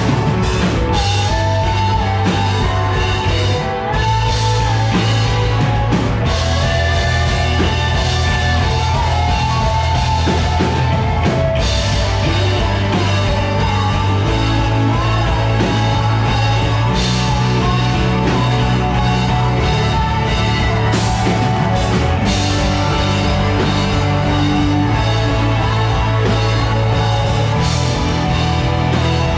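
Live rock band playing through a PA: electric guitar, bass guitar and drum kit, with a woman singing into a microphone over them.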